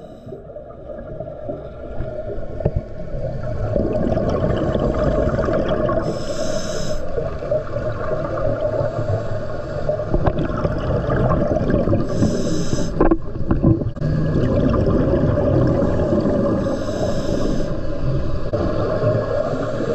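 Underwater sound of scuba divers breathing through their regulators: a constant bubbling rumble, with a short hissing inhalation about every five or six seconds. The sound fades in over the first few seconds.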